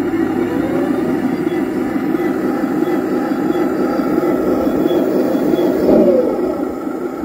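A Heng Long 1/16-scale radio-controlled T-34/85 tank driving, making a continuous rough running sound from its drive gearboxes, its tracks and its speaker's engine simulation. The sound swells briefly about six seconds in.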